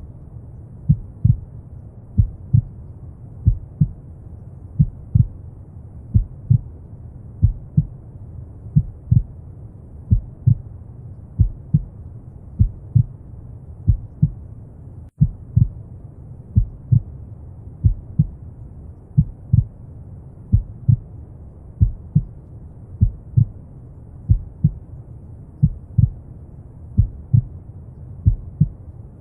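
Slow heartbeat, a steady lub-dub double thump about once every second and a quarter, over a continuous bed of low, rumbling brown noise. The sound cuts out for a split second about halfway through.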